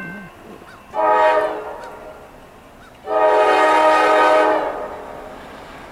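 Norfolk Southern freight locomotive's air horn sounding two blasts: a short one about a second in, then a longer one a couple of seconds later, over the faint rumble of the approaching train.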